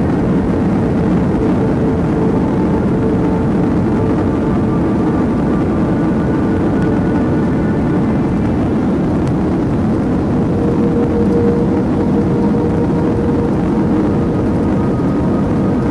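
Steady cabin noise of a jet airliner rolling on the ground after landing, heard from inside the cabin: a loud, even engine and airflow rumble with a steady hum running through it.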